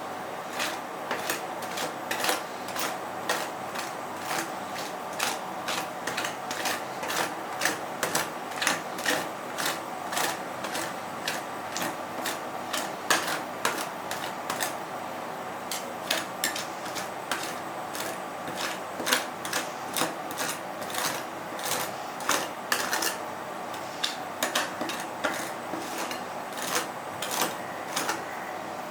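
Metal spatulas tapping and scraping on the frozen cold plate of an ice roll counter, chopping and spreading the ice cream mix: irregular sharp clicks and scrapes, several a second, over a steady hum.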